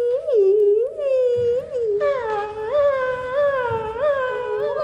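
Choir voices singing a wordless, repeated swooping figure in unison, the pitch rising and dipping about once every three-quarters of a second. About two seconds in the tone turns brighter and fuller.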